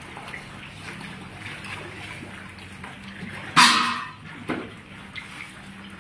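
Water lapping and small splashes as fish feed at the surface on floating feed, with one loud splash about three and a half seconds in and a smaller one about a second later.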